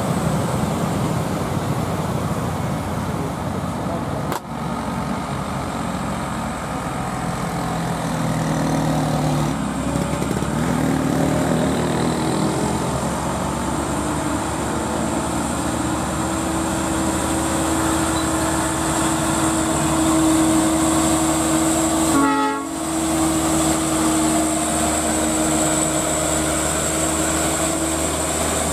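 Diesel engines of heavily loaded Mitsubishi Fuso Canter sand dump trucks labouring up a steep climb, a continuous heavy drone of engine and traffic. A steady droning tone joins in about halfway through and holds to the end. The sound dips sharply twice, a few seconds in and again about three-quarters of the way through.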